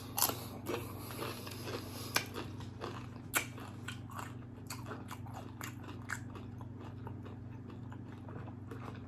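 Close-up sounds of a person biting and chewing crunchy food, with sharp crunches over the first few seconds and then quieter, softer chewing.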